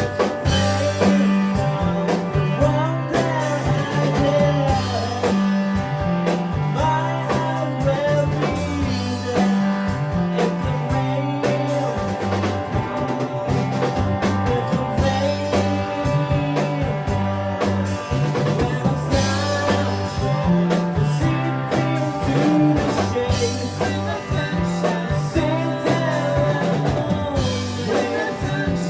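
Live rock band playing: electric guitar over a steady bass line and drum kit, with a melody line weaving above.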